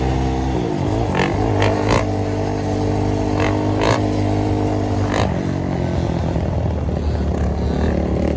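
Dirt bike engine running at steady revs while the bike is held up in a wheelie, its pitch wavering in the first second and then holding steady. A few short sharp clicks sound over it.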